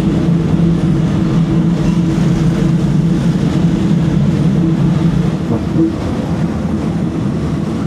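Train running steadily, heard from inside the carriage: a constant rumble with a low droning hum, easing off slightly about six seconds in.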